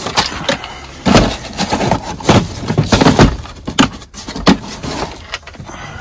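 Hard plastic tool cases being shifted and knocked about on a van floor: a string of irregular clunks and knocks, ending with a case lid being opened.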